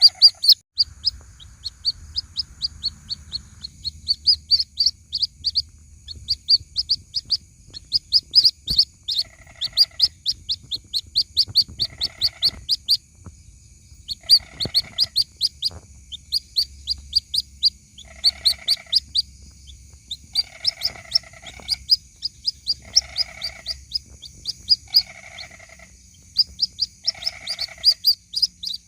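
White-breasted waterhen chicks peeping: a rapid series of short, high chirps, several a second. About nine seconds in, a lower call joins and repeats every two seconds or so.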